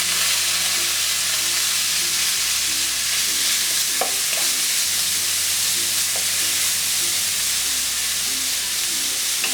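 Chopped onion frying in hot oil with mustard seeds and urad dal, giving a loud, steady sizzle, with a couple of faint clicks partway through.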